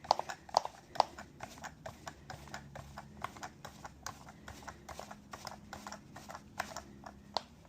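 A 1/4-20 tap being turned by hand through a hole in a 3D-printed PETG plastic block, with irregular clicks and creaks, a few a second, as the tap and its handle work through the plastic.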